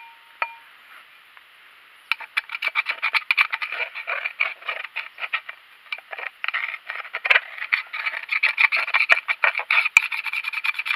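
A screwdriver scraping tar-like oil sludge out of a YaMZ-238 oil centrifuge rotor bowl: fast, repeated metal-on-metal scraping strokes that begin about two seconds in.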